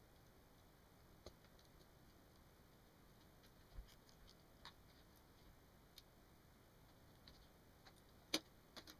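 Near silence broken by a few faint, scattered clicks of a pocket knife blade picking small plastic screw covers off a laptop screen bezel, with one sharper click near the end.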